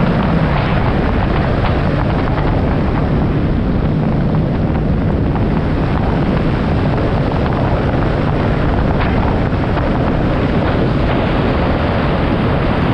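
Motorcycle riding on a wet road: steady wind rushing over the microphone over the low, even hum of the engine, with tyre hiss from the wet pavement.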